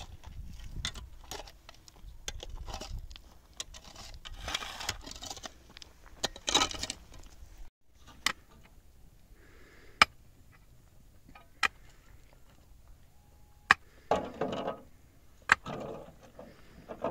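Hand tools working dry, stony soil: hoes scraping and chopping the ground, then a pickaxe striking it about five times, roughly every two seconds, each blow a sharp crack.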